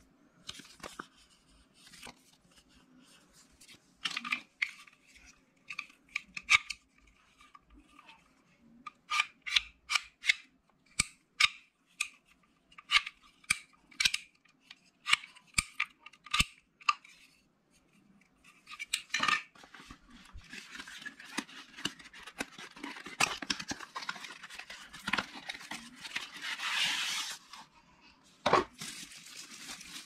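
Packaging being opened by hand: a run of sharp snips and clicks, then, about two-thirds of the way in, a long stretch of rustling and crinkling.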